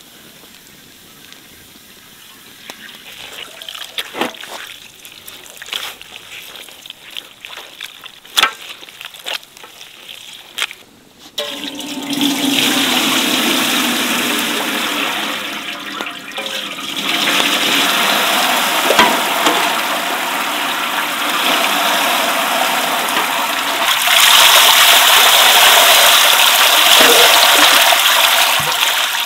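Cloudy liquid poured in a steady stream through a cloth strainer into a large metal pot, splashing into the liquid already there. The pour starts about twelve seconds in and gets louder twice; before it there are only scattered knocks and rustles of handling the cloth and pots.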